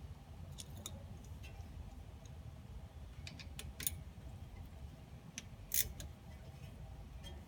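Scattered sharp metallic clicks and clinks of hand tools on the front brake caliper as its bolts are put back in, the loudest about six seconds in, over a steady low rumble.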